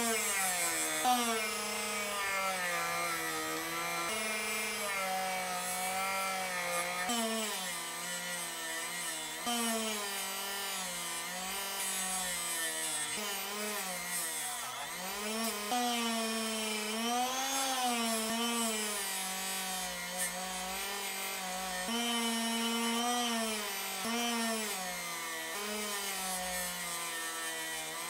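Small variable-speed bench grinder running with a steel wrench pressed against its wheel, metal grinding on the wheel. The motor's pitch keeps dipping and rising as the wrench is pushed on and eased off.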